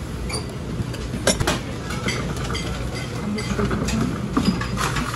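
Dishes and cutlery clinking in a few sharp knocks over a steady low hum, as at a busy eatery counter.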